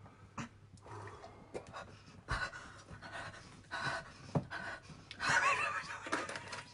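Heavy, irregular panting and breathy gasps through open mouths burning from a super-hot chili chip, with a louder strained vocal groan about five seconds in.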